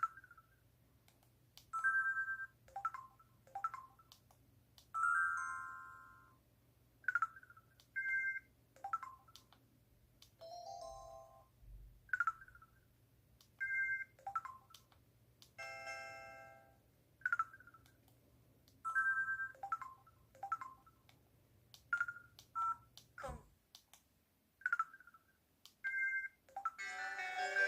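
Samsung Anycall SPH-C2205 slide phone playing an electronic ringtone or sound effect through its speaker: a sparse run of short synthesized beeps, chimes and quick pitch glides separated by brief pauses, with a click near the end.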